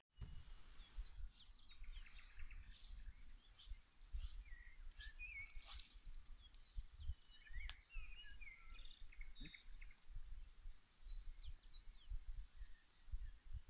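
Birds chirping and singing in short, scattered phrases, with wind buffeting the microphone in irregular low gusts.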